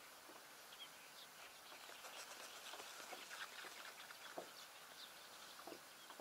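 Near silence: faint outdoor ambience with scattered faint bird chirps.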